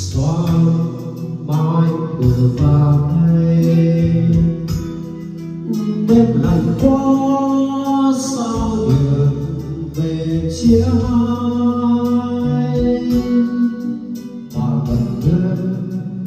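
Karaoke music with a man singing into a microphone, played through a pair of 25Neo RuBy column speakers on 50RuBy subwoofers.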